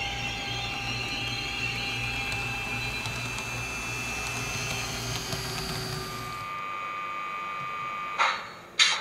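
HO scale model train running on the track, a steady mechanical whir and hum of motor and wheels that dies away about six seconds in. Near the end come two short, loud bursts of noise.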